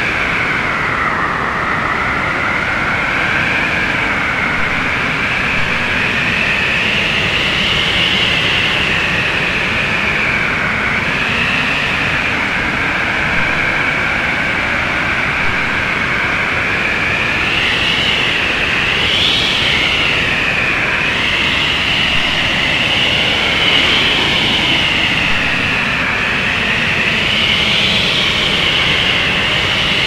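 Blizzard wind sound effect: strong wind howling without let-up, with a high whistle that slowly wavers up and down in pitch.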